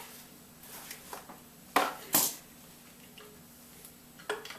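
A few light metal clicks and knocks from engine parts being handled, with two sharper clinks near the middle.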